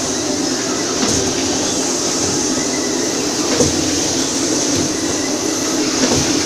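Automatic sheet-fed screen printing machine running, a steady mechanical noise with a few light knocks as it cycles.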